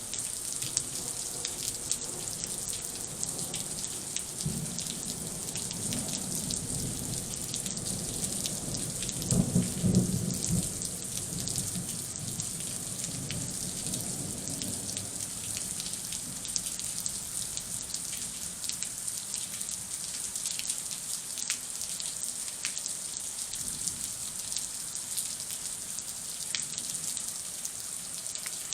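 Steady rain falling, with a roll of thunder rumbling through it from a few seconds in, loudest about a third of the way through, then dying away.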